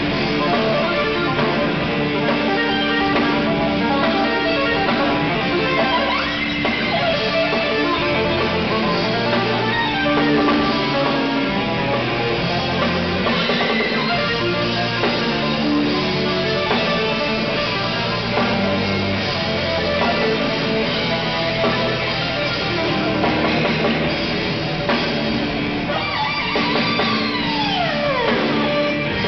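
A live rock band plays an instrumental passage on electric bass, drums and keyboards. Near the end a fast downward pitch glide dives from high to low over the music.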